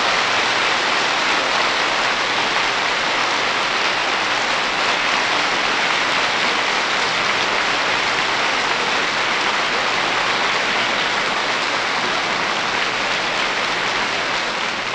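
Studio audience applauding, a dense, even clatter of many hands, heard through an old 1950 broadcast recording, easing a little near the end.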